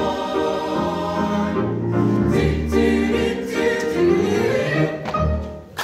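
Mixed-voice choir singing the closing bars of a song in sustained chords, fading out just before the end.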